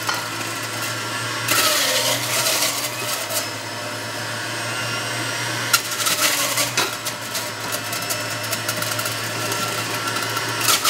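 Electric centrifugal juicer running with a steady motor hum, grinding watermelon chunks as they are pushed down the feed chute. The grinding grows louder in two spells, about 1.5 s in and about 6 s in, as fresh chunks go in.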